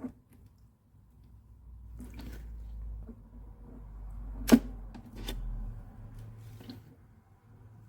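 Handling noises: a low rumble with a few light clicks and knocks, and one sharp, loud click about halfway through.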